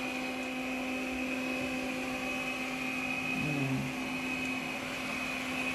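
Robot vacuum cleaner running as it cleans a hardwood floor: a steady motor hum with a high, even whine over a rush of suction.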